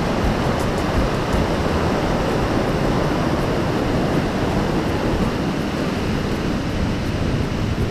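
Steady rushing of water, an even, unbroken roar of falling or breaking water.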